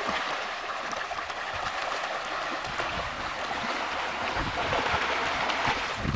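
Steady, dense splashing and churning of water from a large shoal of pangas catfish feeding at the pond surface, made up of many small overlapping splashes.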